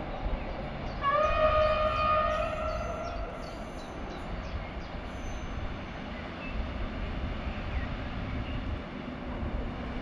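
Horn of an approaching electric passenger train, one steady blast of about two and a half seconds starting about a second in, over the low rumble of the train.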